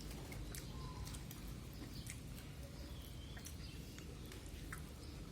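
Faint chewing and small mouth clicks from someone eating ayam geprek (crispy smashed fried chicken with sambal), scattered over a low steady hum.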